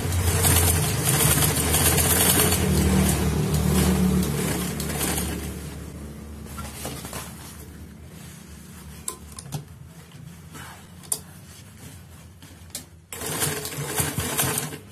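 Old sewing machine stitching vinyl upholstery material, running steadily for about five seconds and then stopping. A few light clicks follow, and then the machine runs again briefly near the end.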